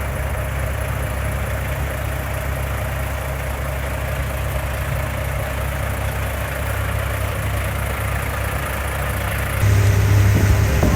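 Komatsu long reach excavator's diesel engine running steadily, growing louder near the end.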